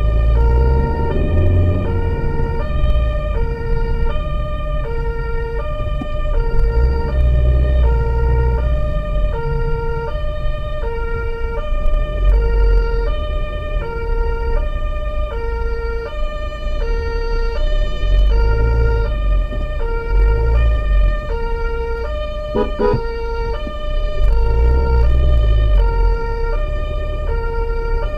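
German two-tone emergency siren on a medical transport vehicle, alternating steadily between a lower and a higher note, heard from inside the vehicle's cabin. Engine and road rumble lies underneath and swells now and then.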